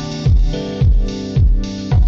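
Background music with a steady beat: a deep kick drum about twice a second under held chords.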